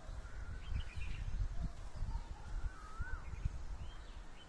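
Birds chirping, with a few short whistled calls that swoop up and down in pitch, over an irregular low rumble.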